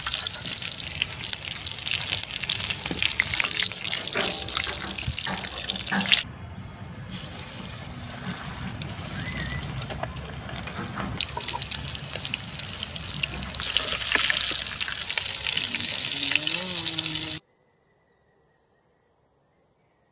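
Battered chicken pieces deep-frying in hot mustard oil: a loud, dense sizzle full of crackling pops. It goes softer for several seconds after about six seconds in, swells again, then cuts off abruptly near the end.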